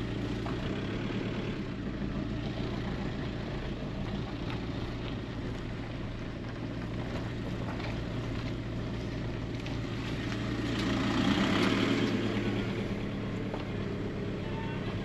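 A Volkswagen Caddy van driving slowly, its engine running with a steady low note. About eleven seconds in, a louder, rougher noise swells up for a couple of seconds and fades.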